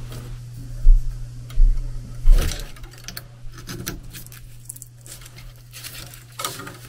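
Hands handling sensor wiring and copper tubing inside an air handler's coil cabinet: three dull thumps in the first couple of seconds, then light clicks and rustling. Underneath is a steady low hum from the running air handler.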